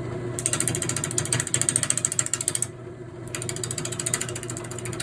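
Jet wood lathe running with a steady motor hum while a turning tool cuts an out-of-round maple log, knocking against the high spots in a fast, even rhythm of clicks. The cutting stops for about half a second near the middle, then starts again.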